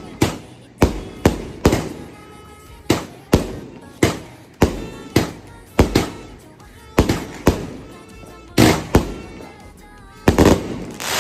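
A 1.2-inch, 36-shot fireworks cake firing shot after shot: about fifteen sharp bangs at uneven intervals of roughly half a second to a second, with a longer, denser crackling burst near the end.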